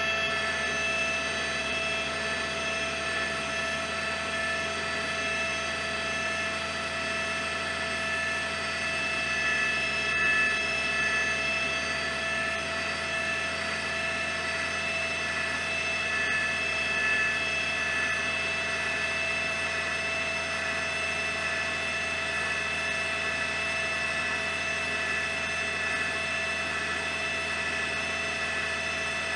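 Helicopter engine and rotor noise: a steady whine made of several held pitches over a constant rush, unbroken throughout.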